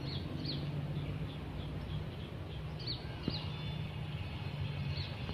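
Several short, high bird chirps that slide downward, some in pairs, over a steady low hum.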